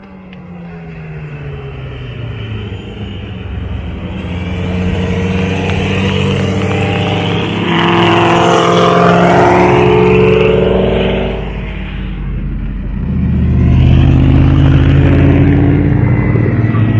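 Race car engines at full throttle on the track: one car's engine grows steadily louder as it approaches and passes close about eight to eleven seconds in, its pitch sweeping as it goes by. A second car's engine builds up loud near the end.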